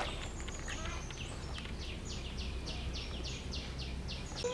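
High chirps repeating evenly, about three to four a second, over a low steady hum.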